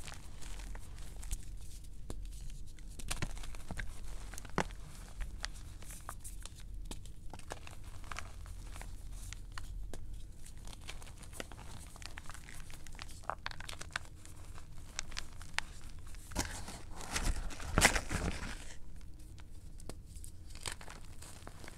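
Blocks of gym chalk crushed and crumbled between the hands over a bowl of loose chalk powder: a steady run of soft crackles and crunches. A louder, denser stretch of crumbling comes late on and lasts about two seconds.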